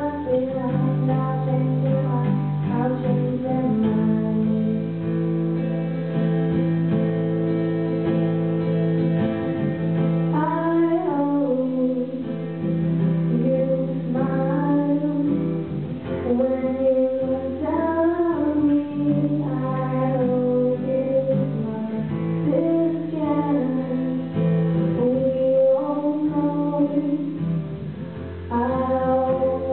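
Two acoustic guitars strummed while a girl sings into a microphone: a live song.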